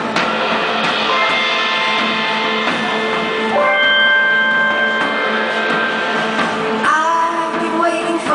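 Live rock band playing: guitars holding long sustained notes over a drum kit, with a woman's singing voice coming in near the end.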